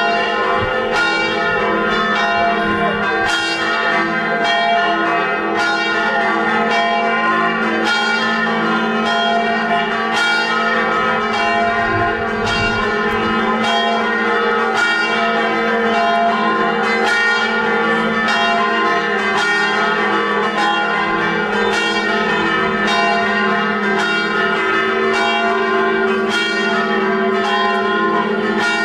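Church bells ringing continuously, several bells struck in a steady rhythm so that their long tones overlap into one ringing peal.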